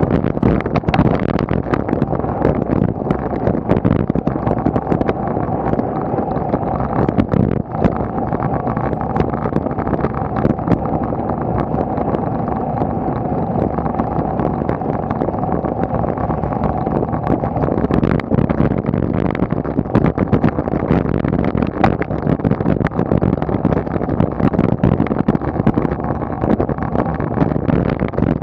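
Wind buffeting the microphone of a bike-mounted action camera on a bicycle climbing at about 20 km/h, mixed with tyre and road rumble and frequent small rattling clicks.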